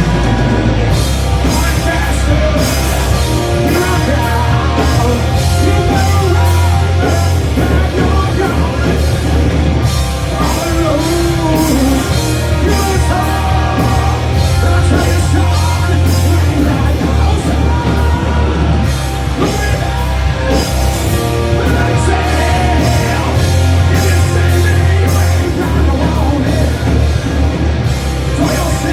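Live rock band playing loudly, with drums and a sung vocal.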